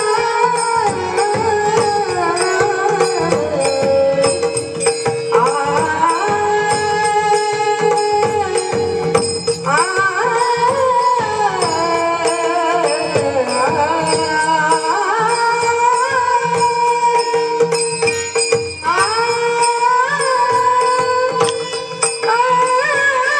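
Marathi devotional bhajan music in raga Bhairavi: a melody slides between long held notes over a steady drone, with small hand cymbals ticking in a regular rhythm.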